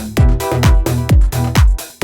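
Electronic dance music with a steady kick drum, about two beats a second, under bass and synth chords.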